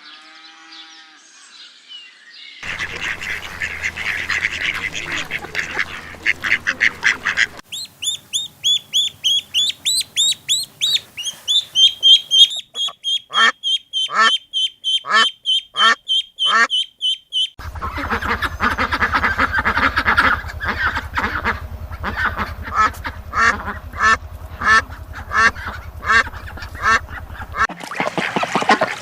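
Ducks and other fowl calling across several short back-to-back clips: stretches of rapid quacking, and in the middle a few seconds of repeated high peeping calls.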